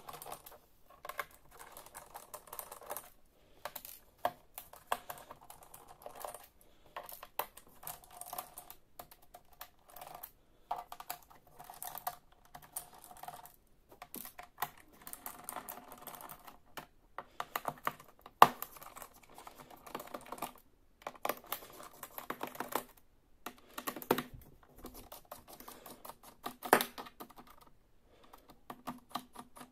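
Small screwdriver backing the screws out of an Acer Extensa EX2519 laptop's plastic bottom cover: a run of quick clicks and scrapes as the screws turn and are lifted out. Midway one sharp click stands out above the rest.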